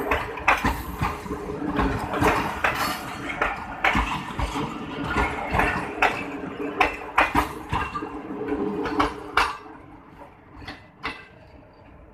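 Passenger coaches' steel wheels rolling past on the rails, clattering with a quick, irregular run of sharp metallic clanks. The clatter drops away about nine and a half seconds in, leaving only a few scattered clicks as the last coach moves off.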